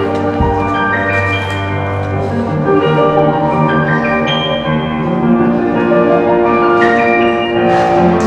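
Instrumental program music with sustained melodic notes, with a rush of hiss-like noise joining near the end.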